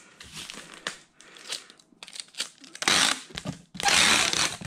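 Clear packing tape pulled off a handheld tape gun and pressed across a cardboard box, in two loud tearing runs about three and four seconds in, after lighter rustling of the box and label.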